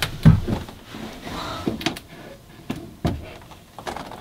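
A run of short knocks and thumps, about six or seven spread irregularly, in a small enclosed room, like a door or cupboard being handled.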